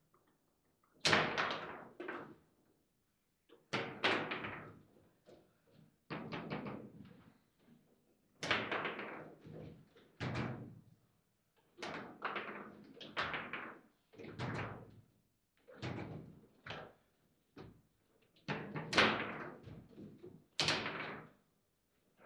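Table football being played hard: the ball cracking off the plastic figures and the table walls, and the rods banging, in a run of sharp knocks every second or two, some coming in quick clusters.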